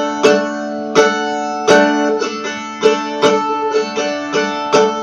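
Mandolin tuned to an open D major chord, strummed and picked so the chord rings, with sharp strums every half second to a second and lighter picked notes between.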